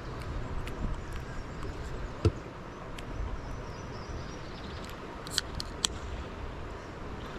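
Steady water and paddling noise out on a river kayak trip, with one sharp knock about two seconds in and two lighter clicks later on.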